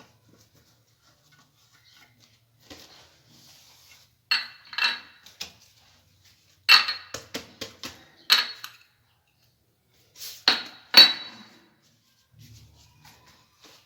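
Metal kitchen utensils and dishes clinking: short clusters of sharp, ringing clinks with quiet handling in between, the loudest near the end.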